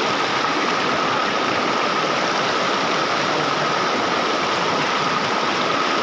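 Shallow mountain river rushing and churning over boulders close by, a steady rush of water. A thin, steady high tone runs underneath.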